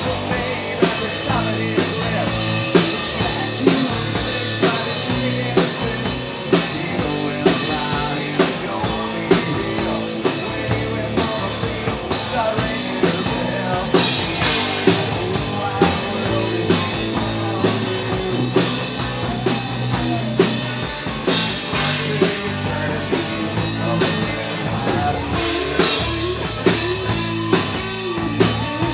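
Live rock band playing loudly: drum kit keeping a steady beat under electric guitars.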